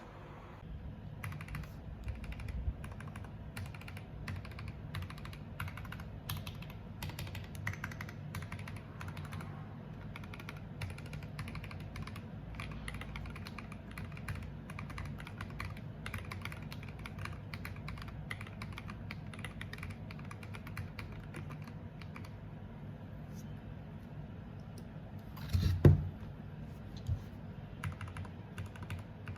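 Typing on a 75% mechanical keyboard fitted with MDA-profile keycaps: a steady run of quick key clacks that starts about a second in. Near the end, one much louder knock stands out.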